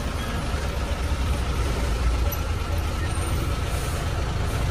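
Heavy truck's engine running with a steady low rumble, heard from inside the cab as the truck moves slowly.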